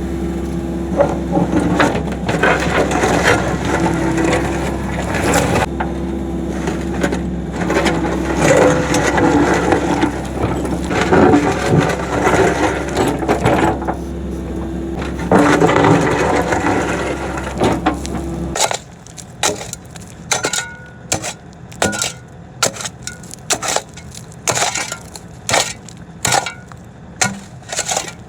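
Midsize excavator's diesel engine running while the bucket scrapes and crunches through dirt and rock. About 18 seconds in, the engine sound cuts off abruptly, leaving a run of sharp, irregular knocks and cracks.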